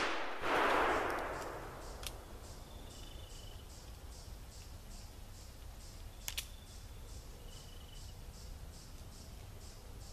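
The echo of a .44 black-powder revolver shot (a Pietta replica of the Colt 1851 Navy) rolling back and dying away over about two seconds, followed by a sharp click about two seconds in and a quick double click about six seconds in from the revolver's action as it is readied for the next shot. Insects chirp steadily behind, about two chirps a second.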